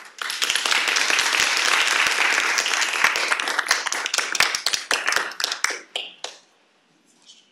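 Audience applauding: dense clapping for about six seconds that thins to a few scattered claps and stops.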